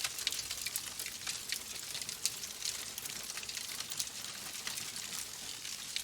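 Log fire crackling in a fireplace: a steady hiss with many quick, irregular pops and snaps.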